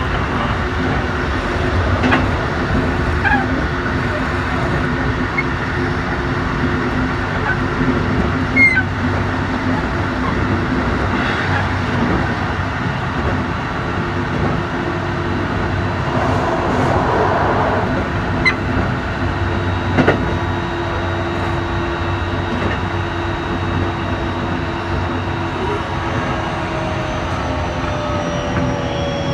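Interior running noise of a Keikyu New 1000 series motor car with Toshiba IGBT-VVVF traction control: a steady rumble with faint motor tones and occasional clicks from the wheels. Near the end, the inverter and motor whine falls in pitch.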